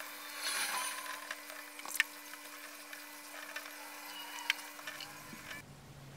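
A cloth rag rubbing over a small steel anvil's coated surface, with a few sharp clicks and a steady low hum behind it. The sound cuts off abruptly about five and a half seconds in.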